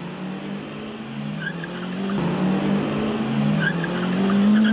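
Small hatchback gymkhana car driven hard, its engine revving up and down, with short tyre squeals about a second and a half in and again near the end. The engine is loudest near the end.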